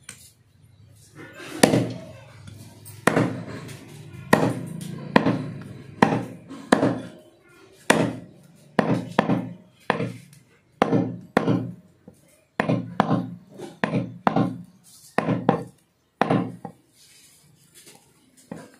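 Meat cleaver chopping through goat meat and bone: a steady series of heavy chops, one or two a second, stopping shortly before the end.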